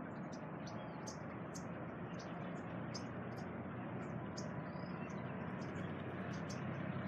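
Small birds chirping, many short high-pitched squeaky calls several times a second, over a steady low hiss.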